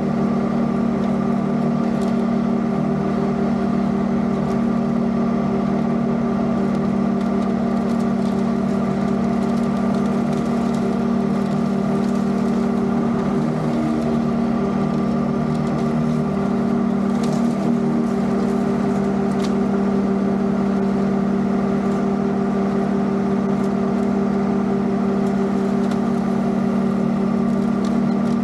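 Zero-turn riding mower's engine running at a steady speed while mowing, a constant drone with a few faint ticks now and then.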